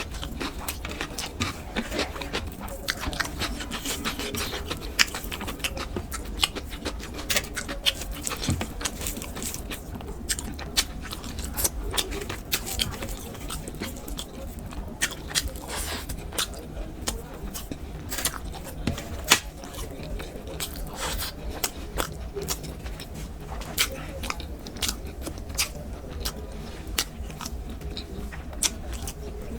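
Close-miked eating sounds: a person chewing with many quick, irregular wet mouth clicks and smacks.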